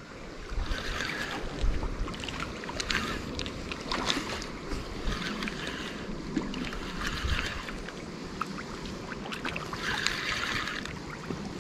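Spinning fishing reel being wound in while a hooked fish is played at the bank, with uneven clicking and rasping and the sound of water moving.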